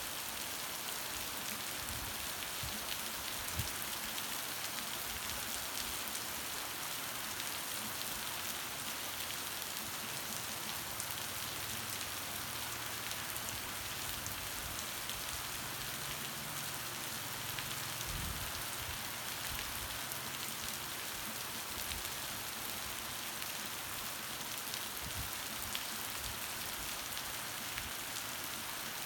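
Heavy rain falling steadily, a dense even hiss of raindrops. A faint low hum comes in for a while in the middle.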